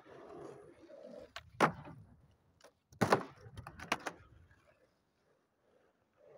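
Skateboard wheels rolling on asphalt, then the board clacking hard against a wooden pallet ramp, with a sharp clack about a second and a half in, the loudest clatter about three seconds in and a few lighter clacks after it.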